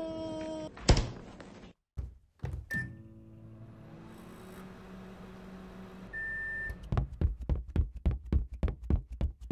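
Microwave oven sound effects: a thunk and a short beep, then the oven running with a steady hum for about three seconds, then a longer beep as it finishes. A thud comes about a second in, before the microwave, and a quick run of sharp taps follows near the end.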